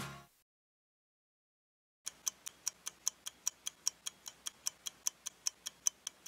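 Background music fades out, and after about a second and a half of silence a clock-ticking sound effect starts: fast, even ticks, about five a second.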